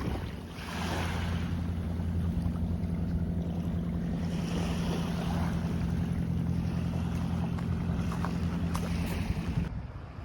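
Small waves washing onto a sandy beach, swelling about three times, over a steady low drone of a boat engine. The sound cuts off abruptly near the end.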